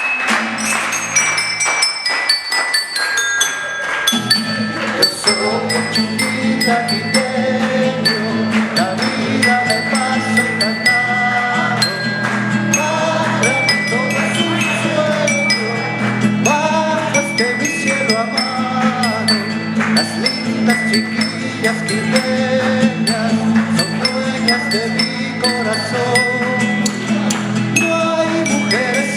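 A pasacalle played on a homemade keyboard-like instrument of tuned tubes, a quick run of struck notes that ring briefly. A steady low accompaniment joins about four seconds in and runs under the melody.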